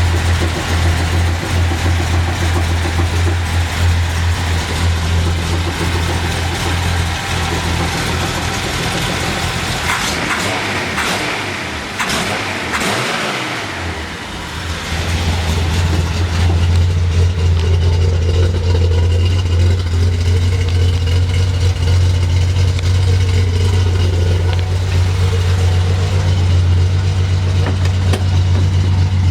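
Datsun 240Z's 2.4-litre inline-six with twin SU carburettors idling steadily at about 1,000 rpm, the rough idle gone now that the leaking carburettor balance tube gasket has been replaced; the carburettors are not yet tuned. Partway through, the steady low hum briefly gives way to a noisier stretch before settling back.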